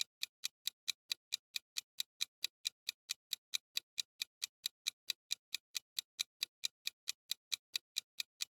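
Quiz countdown-timer sound effect: steady clock-like ticking, about five sharp ticks a second.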